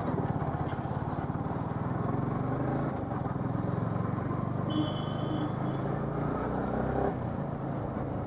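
Motorcycle engine running at a steady cruising speed while being ridden.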